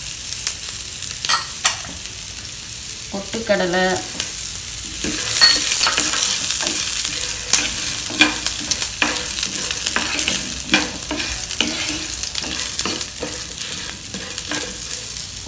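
Dried red chillies, shallots, garlic, ginger and urad dal sizzling in hot oil in a nonstick frying pan, with a wooden spatula scraping and tapping the pan as they are stirred.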